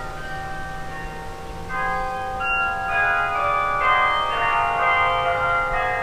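Carillon of bronze tower bells playing a tune: struck bells ring on and overlap, with a fuller chord of bells entering about two seconds in.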